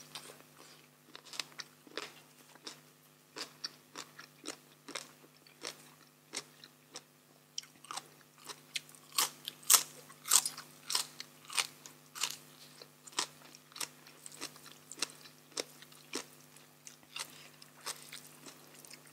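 Close-miked chewing and biting of crunchy raw vegetables and green papaya salad: a run of crisp crunches, about two a second, loudest around the middle.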